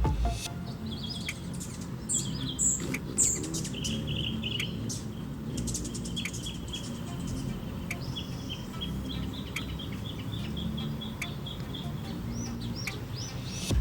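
Birds chirping: many short, high chirps and quickly repeated twittering notes, over a steady low background rumble.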